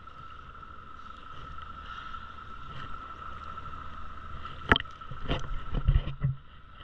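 A boat engine idling with a steady hum and a low rumble, heard with the microphone at the water's surface. From about two-thirds of the way in, water splashes and slaps close by several times, louder than the hum.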